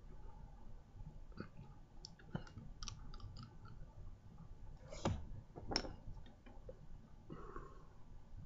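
Faint mouth clicks and lip smacks from a pipe smoker taking the pipe back into his mouth and puffing on it, with two louder clicks about five and six seconds in.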